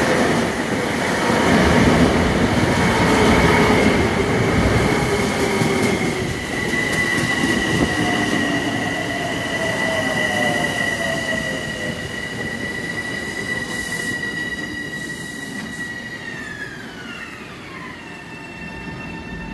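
Long Island Rail Road M7 electric multiple unit running on the rails with wheel rumble and a steady high electric whine from its traction motor drive. Near the end the whine glides down in pitch as the train slows into the station.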